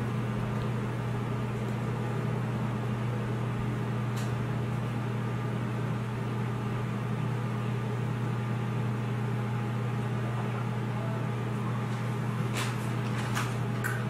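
A steady low machine hum with a few faint short clicks, one about four seconds in and several near the end.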